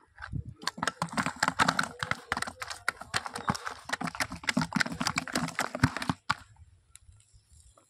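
A freshly caught fish flapping inside a plastic bucket: a fast, irregular run of slaps and knocks against the plastic that stops suddenly about six seconds in.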